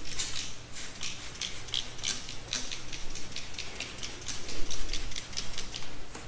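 Hand trigger spray bottle misting detailing cleaner onto a car roof: a rapid run of short sprays, each a quick hiss, about three or four a second.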